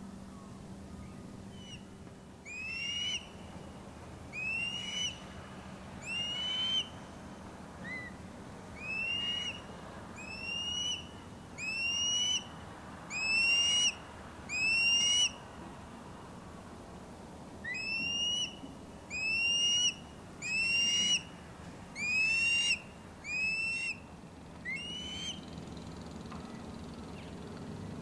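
Osprey calling: a series of loud, clear whistled calls, each about half a second long and repeated about once a second, in two bouts with a short pause near the middle.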